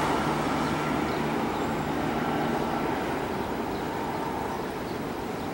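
Jet engines of an Airbus A319 climbing away after takeoff: a steady rushing noise with a faint whine, slowly fading as the aircraft moves off.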